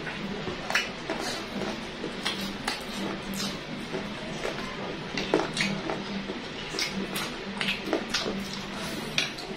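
Fried chicken being eaten up close: crisp bites into the breaded skin, chewing and lip smacks, heard as irregular sharp clicks, several a second.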